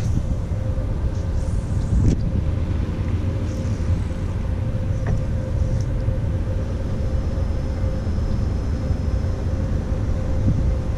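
Wind buffeting the camera's microphone, a loud, uneven low rumble, with a couple of light knocks from handling rod and kayak.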